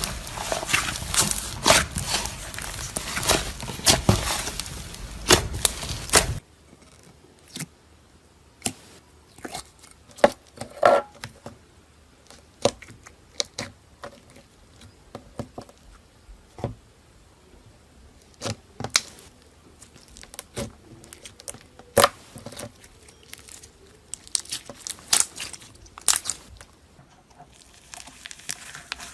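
Slime being squeezed and worked by hand: dense crackling and crinkling for the first six seconds or so, then scattered separate pops and clicks.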